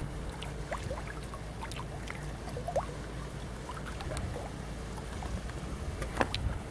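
River water flowing at a weir: a steady low rush with many small drips and splashes over it, and one sharper splash or knock about six seconds in.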